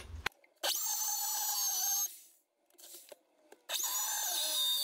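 Corded hammer drill boring into a masonry wall in two runs of about a second and a half each, with a pause of over a second between them; the motor's whine settles slightly lower as the bit bites in.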